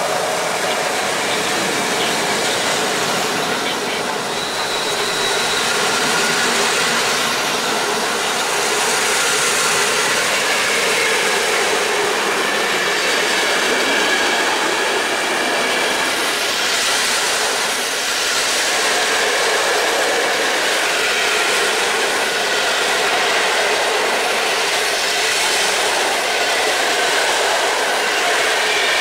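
Passenger coaches of a long PKP Intercity train rolling past on the rails: steady wheel-and-rail noise with clickety-clack over the joints.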